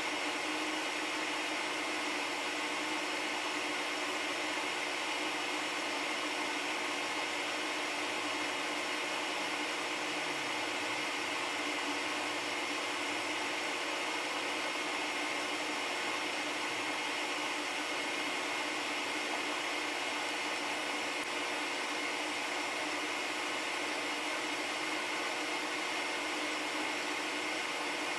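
Steady whirring machine noise, like a fan running, with a constant hum.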